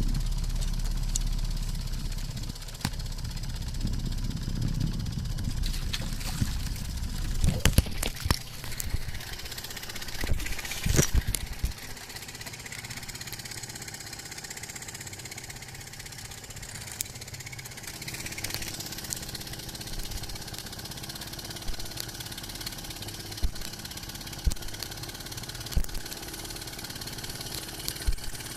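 A small boat's engine idling steadily, with a cluster of sharp knocks and clatters from handling gear on board around the middle.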